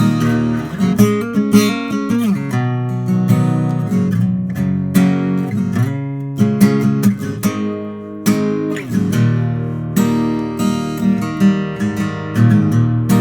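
Martin 00-28 Modern Deluxe, a 00-size rosewood-and-spruce acoustic guitar, played fingerstyle and strummed, with chords and single notes ringing, close-miked and unprocessed.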